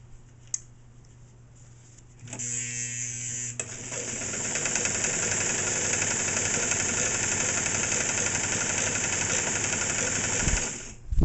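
Singer 237 sewing machine starting up, then running steadily at speed while stitching a cord through thick layers of upholstery fabric. It stops shortly before the end.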